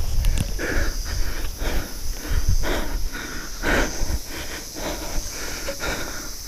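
A person breathing hard, about one breath a second, from the exertion of climbing a tree trunk by wooden pegs. A steady, high insect drone runs behind.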